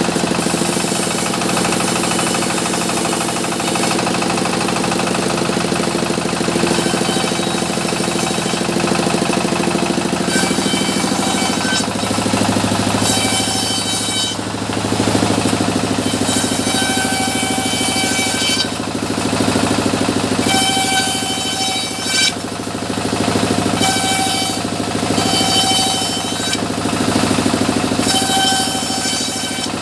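Sawmill machinery running with a steady engine drone. From about a third of the way in, a higher whine cuts in and out again and again, each lasting a second or two, every two to three seconds.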